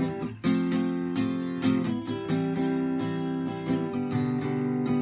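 Acoustic guitars strumming chords in an instrumental passage between verses of a folk song.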